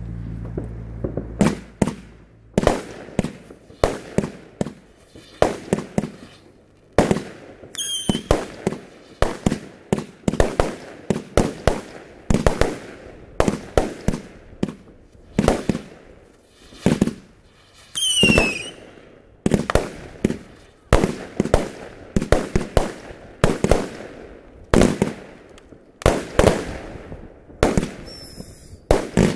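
Fireworks going off in a long, steady barrage of sharp bangs, often several in quick succession, with a couple of short falling whistles among them.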